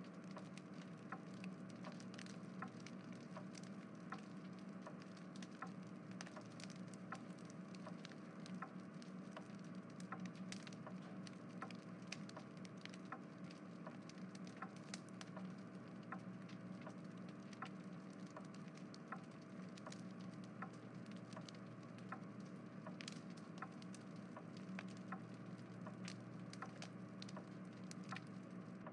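Faint steady hum with irregular soft crackling clicks, the background ambience of an animated living-room scene playing in the Plotagon app.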